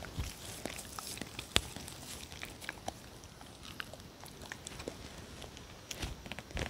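Dogs licking and chewing at a hand: irregular small clicks and smacks, with one sharper click about a second and a half in.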